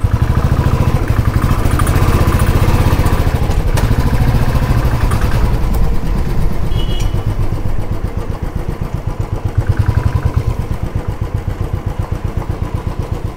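Motorcycle engine running at low speed with an even, rapid exhaust pulse. It is loudest in the first half and eases off in the second half.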